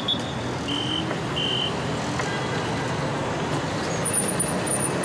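City street traffic: a steady wash of passing cars and scooters, with two short high-pitched beeps about a second in.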